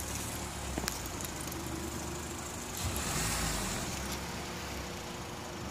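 Car engine idling steadily under a light hiss, with a few faint clicks.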